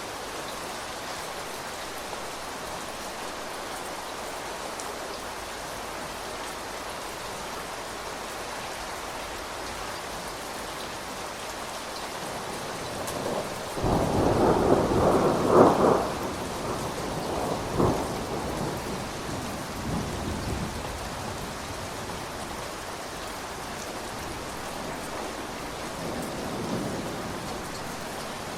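Steady rain falling, with a peal of thunder about halfway through: a loud rumbling clap lasting a couple of seconds, a sharper crack shortly after, then the rumble dying away under the rain.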